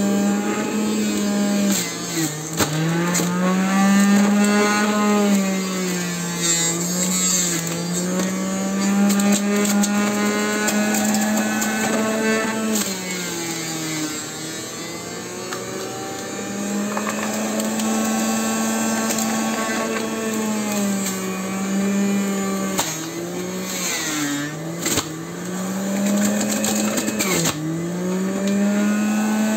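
Electric centrifugal juicer running with a steady motor hum whose pitch sags several times, notably about 2 s in, around the middle and again near the end, then recovers, as produce is pressed down the feed chute and loads the motor. A few sharp knocks of produce hitting the spinning cutter disc.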